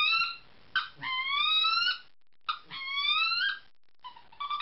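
Wood duck call blown in a series of squealing whistles: three notes, each about a second long, that slide smoothly upward in pitch, with another starting near the end. The call has no breakover point, so each note rises without the break of a real wood duck's squeal.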